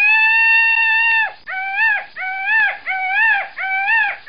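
Indian peafowl (peacock) calling: one long, loud call held for over a second, then five shorter rising-and-falling calls in quick succession.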